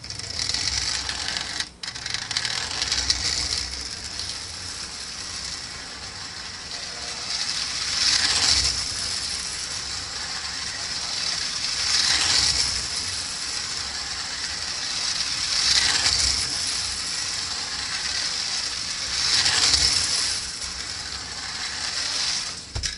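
Marx Commodore Vanderbilt toy locomotive running laps on tin-plate track, its motor and gears whirring and its wheels clattering. The sound swells each time the train comes round close, about every four seconds. It starts suddenly, breaks off briefly after about two seconds, and stops suddenly near the end as the power is cut.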